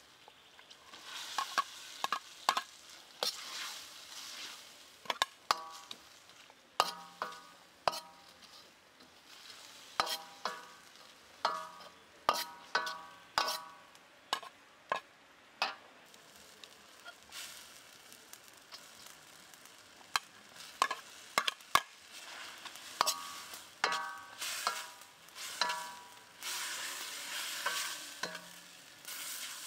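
Metal ladle knocking and scraping against a metal wok during stir-frying, each knock ringing briefly, over the steady sizzle of food frying in hot oil. The knocks come in quick runs with short pauses between them, and the sizzle swells louder near the end.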